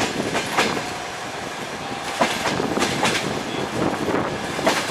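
Train carriage wheels clattering over the rails at speed, heard from inside the carriage: a steady rumble with sharp clacks at the rail joints, coming singly or in pairs every half second to two seconds.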